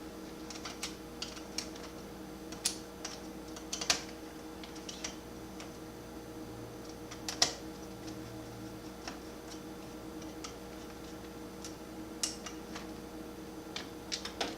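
Scattered light clicks and taps of a micro Phillips screwdriver and small screws being worked on a laptop's plastic chassis, undoing the two screws that hold the CPU fan. A faint steady hum runs underneath.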